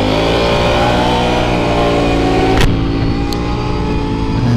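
Can-Am Renegade 1000 ATV's V-twin engine accelerating, its note rising for about two and a half seconds. A sharp crack follows, after which the engine note drops and runs steadier.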